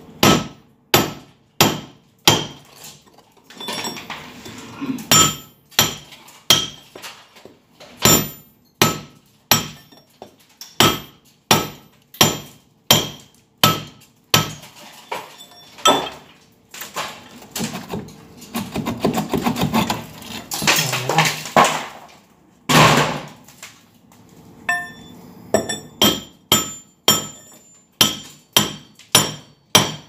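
Hammer striking a steel chisel held against a masonry wall, chipping out a duct opening: sharp ringing metal-on-metal blows, about one every second at first. Midway the blows stop for a few seconds of scraping and rattling, then come back quicker, about two a second, near the end.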